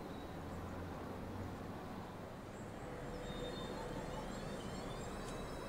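Distant electric multiple-unit train approaching, heard over a steady outdoor background hiss; from about halfway a faint set of high whines from its traction motors rises in pitch and then holds steady.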